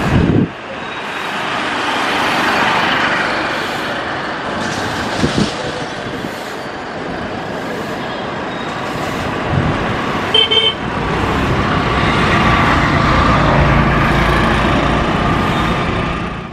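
Jet engines of a Boeing 787 airliner on final approach: a steady rushing roar mixed with road-traffic noise, with a deeper rumble building over the last few seconds. A short car-horn toot sounds about ten seconds in.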